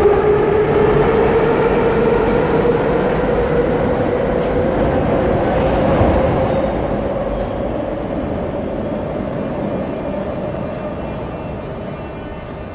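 Moscow Metro train noise: a dense rumble with a humming tone that slowly rises in pitch, growing fainter in the second half as the listener leaves the car for the platform.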